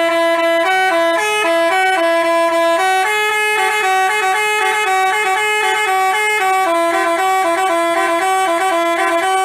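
Basuri telolet horn playing a quick melody: two tones move up and down in steps together, with no break between notes.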